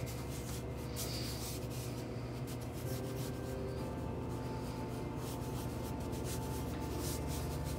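Colour pencil scratching across newsprint in quick, repeated shading strokes.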